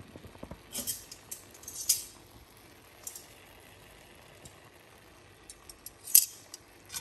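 Light clinks and scrapes of a metal utensil against an enamelled cast-iron pot, a few scattered knocks with the loudest about six seconds in.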